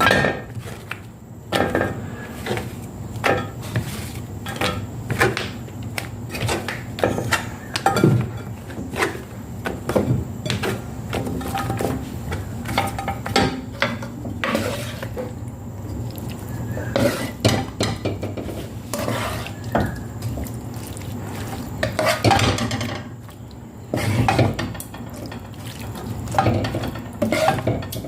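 Kitchenware clinking and knocking as food is prepared: utensils striking bowls and pans in an irregular run of sharp knocks and clinks.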